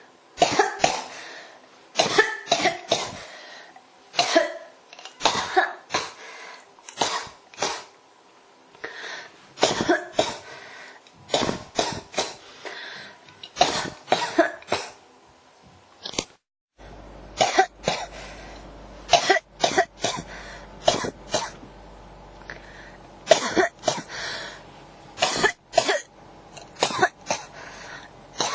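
A person coughing in fit after fit: short, sharp coughs in quick runs of several at a time. There is a brief drop-out about halfway through, after which the coughing goes on over a low steady hum.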